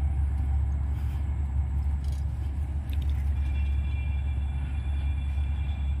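Steady low rumble of travel along a road, with faint, thin high tones coming in about halfway through.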